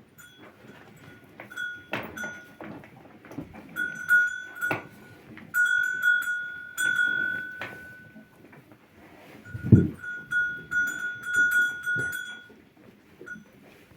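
Livestock sounds: a clear high tone that comes again and again in stretches of one to two seconds, with a deep low sound about ten seconds in and a few sharp knocks.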